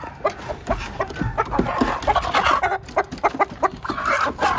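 Chickens clucking in a quick string of short notes, with louder bursts about two seconds in and near the end.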